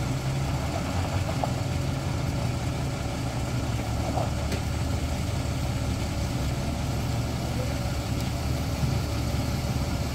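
Vehicle engines idling with a steady low hum.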